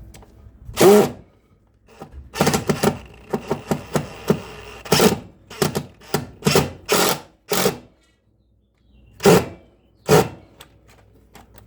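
Cordless impact driver driving a screw in a series of short trigger bursts, with pauses and a few clunks between them.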